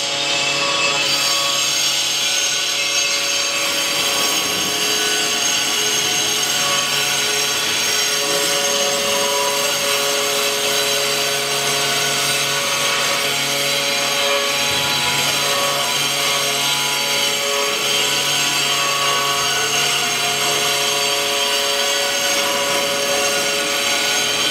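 5-axis CNC router spindle milling an aluminium part: a steady multi-tone machine whine over continuous cutting noise, with a lower hum that drops out briefly now and then as the tool path changes.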